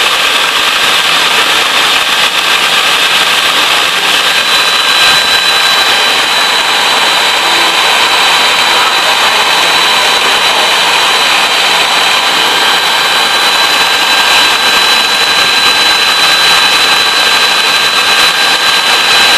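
Electric mixer running steadily at high speed, whipping eggs for sponge cake batter, with a high motor whine that sharpens about four seconds in.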